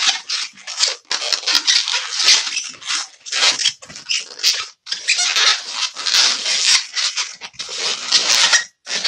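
White 260 latex twisting balloon, inflated, rubbing and squeaking under the hands as it is twisted into segments. It goes in a quick series of short rubbing squeaks with brief pauses.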